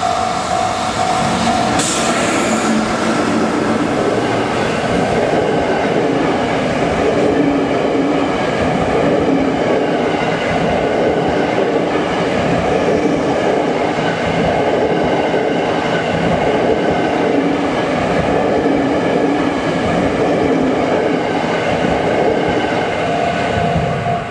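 Freight train hauled by an EF66 electric locomotive, carrying Tokyo Metro subway cars on their own wheels, passing close by at a level crossing: a loud, steady rumble and clatter of wheels on rail with a short loud rush about two seconds in. The crossing's warning bell rings at the start and is heard again near the end as the train clears.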